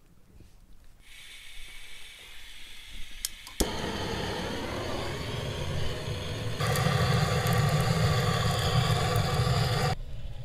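Propane hissing through the hose once the cylinder's valve is opened, then lighter clicks and a gas burner catching about three and a half seconds in and running with a steady rushing flame, louder from about six and a half seconds, cutting off suddenly near the end.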